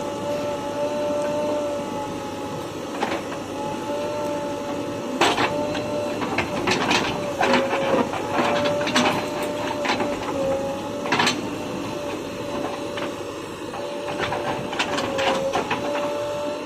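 Bulldozer working: a steady, slightly wavering high whine runs throughout, with sharp metallic clanks and knocks coming in irregular runs from about five seconds in.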